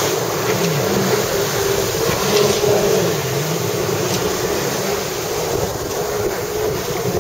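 Jet ski engine revving up and down again and again as the craft spins tight doughnuts, over the rush of churned water and wind on the microphone.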